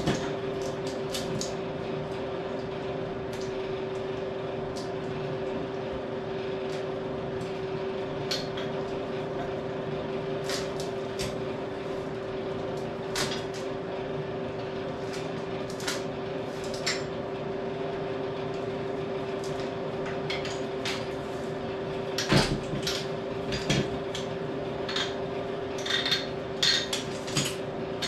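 Steel chain being handled, its links clinking and rattling in scattered clicks, with a heavier thump a little past the middle and a quicker run of clinks near the end. A steady mechanical hum runs underneath.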